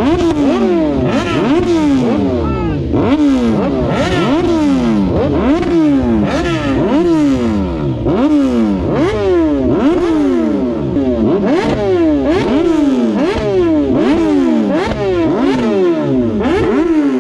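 Superbike engine revved hard again and again in quick blips, each rev rising sharply and then dropping back, more than a dozen in a row.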